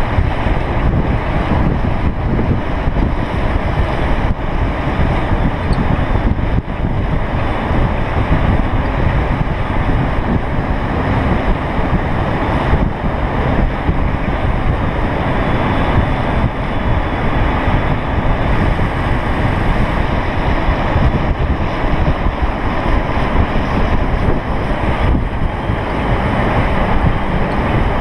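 Loud, steady wind buffeting on the camera microphone at downhill longboarding speed.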